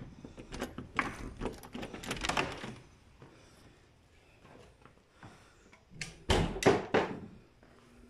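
Wooden door being handled and opened, with a run of clicks and knocks, then a heavier thump and rattle about six seconds in.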